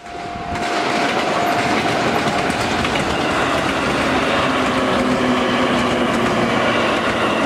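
Yellow JR West electric multiple-unit passenger train running past, its wheels clattering over the rail joints. It swells up over the first second, then holds steady and loud.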